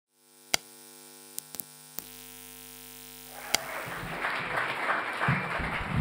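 Steady electrical mains hum from a sound system, broken by several sharp clicks. A little past halfway the hum gives way to a rising noise of the audience in the room, with some low thumps.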